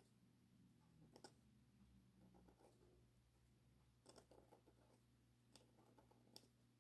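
Faint scratching of a calligraphy pen nib on paper, with a few faint clicks as the pen touches down, over a steady low hum.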